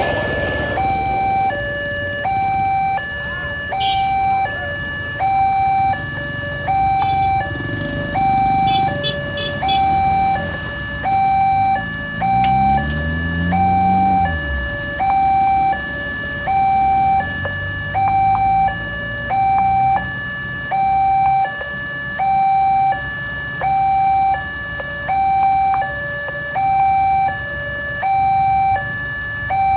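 Railway level-crossing warning alarm sounding continuously: an electronic two-tone signal alternating high and low, about one cycle every second and a half, warning that a train is approaching. Low traffic noise runs underneath, and an engine revs up briefly about twelve seconds in.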